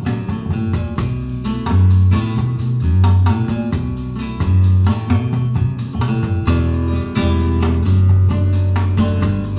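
Guitar music with plucked notes over a strong bass line, played back through Dali Ikon 5 mk2 loudspeakers and picked up in the room.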